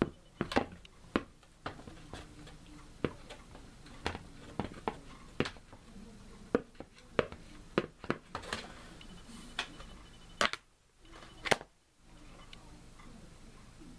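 Irregular clicks and knocks of a box fan's plastic blade and grill being handled while the blade is worked back onto the motor shaft, about twenty sharp taps scattered unevenly, the loudest one just after the 11-second mark.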